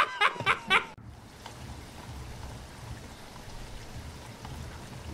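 The last few beats of a rapid laugh end about a second in; then steady rain falls, with a low rumble beneath it.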